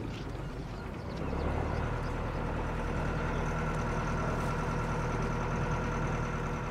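A small motorboat's engine idling steadily.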